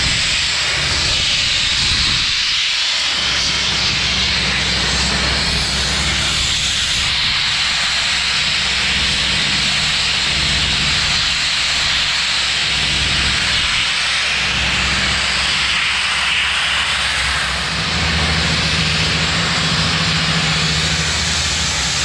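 Vapor blasting nozzle spraying a steady, loud jet of water, abrasive media and compressed air onto concrete, etching the surface. A low steady hum runs underneath.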